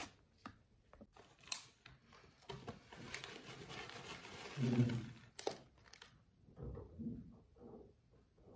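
Plastic tea packaging crinkling and dry loose-leaf green tea rustling as hands dig into it, with scattered sharp clicks. A brief low-pitched sound comes about halfway through, followed by a few light taps.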